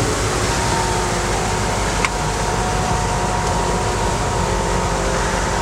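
Army Humvee driving through floodwater: a steady drone of engine and road noise with a few faint, steady whining tones.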